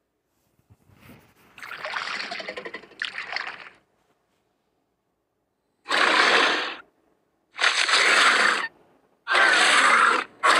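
Designed Ceratosaurus dinosaur vocal sound effects: a rough, quieter growl lasting about three seconds, then after a pause four loud, harsh calls of about a second each, the last one starting near the end.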